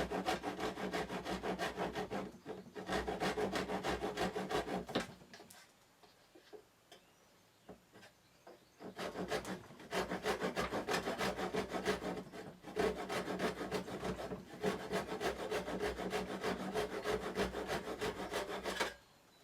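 Hand saw cutting the excess ends of glued-in wooden dowels flush with the box surface, in quick back-and-forth strokes. The sawing stops for about four seconds a third of the way in, then resumes until near the end.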